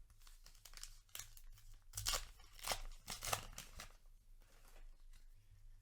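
A foil booster pack wrapper being torn open and crinkled in the hands, in a run of rustling tears that is loudest about two to three and a half seconds in and fades to quieter handling.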